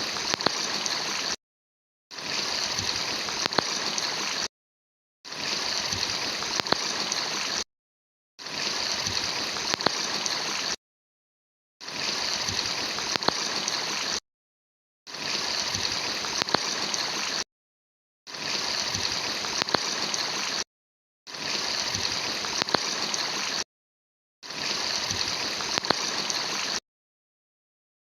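Rushing stream water, heard in stretches of about two and a half seconds broken by short gaps of dead silence, nine times over.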